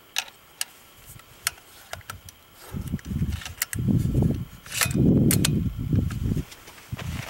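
Bolt-action rifle being handled: a few sharp metallic clicks from its action, then louder dull rustling and thumps from handling and movement beside it in the second half.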